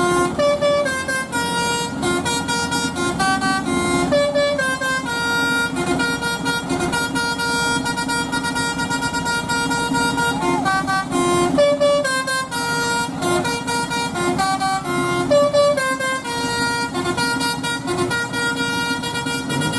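Bus 'basuri' telolet horn, a set of musical air horns, playing a tune of short notes that change quickly one after another, without a break.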